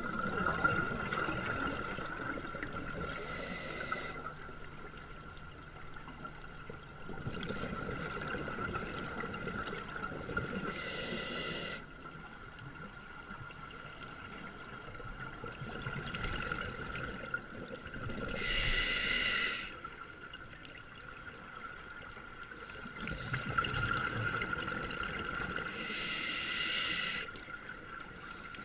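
Scuba diver breathing underwater through a regulator: four breaths, each a rush of air and bubbles ending in a short, bright hiss, about every seven to eight seconds, over a faint steady high tone.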